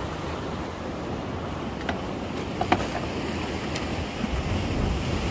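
Sea waves washing against the breakwater, with wind buffeting the microphone. A few faint clicks, the sharpest about halfway through.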